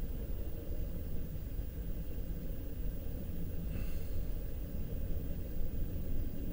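Steady low rumble heard from inside a car cabin, with a distant double-stack intermodal freight train rolling past.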